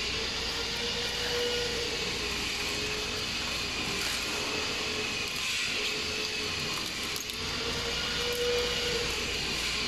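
Steady machinery noise, an even hum and hiss with a faint wavering whine, as of factory equipment running.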